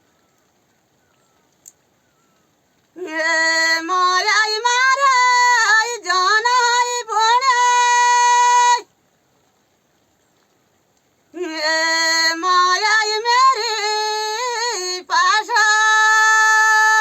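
A single high voice singing unaccompanied in two long phrases, each full of quick wavering turns and ending on a long held note, with a pause between them.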